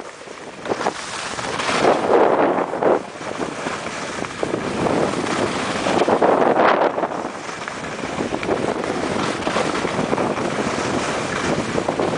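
Wind rushing over the microphone while skiing downhill, mixed with the hiss of skis sliding over snow. The rush swells in surges about two seconds in and again at six to seven seconds, then settles to a steady noise.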